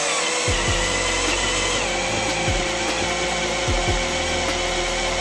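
Cordless drill running steadily with a constant whine as it drills the head off a screw that would not unscrew.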